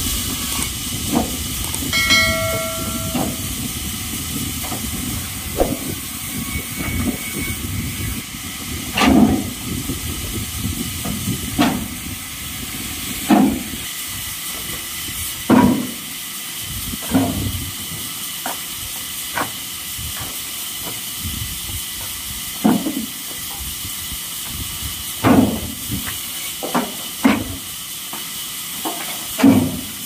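Scrap wood slabs and offcuts knocking and clattering as they are tossed and stacked into a pickup truck's bed, a thud every second or two, over a steady hiss.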